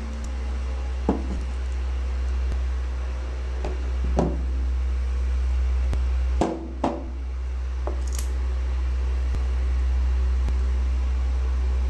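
Steel pliers and small metal drive parts knocking against the tabletop as they are picked up, set down and handled: a few light knocks, with two sharper ones close together about six and a half seconds in, over a steady low hum.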